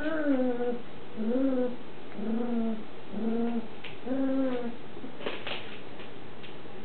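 Shetland Sheepdog puppies vocalizing: five short, low whining calls about a second apart, some falling in pitch, followed by a few light clicks about five seconds in.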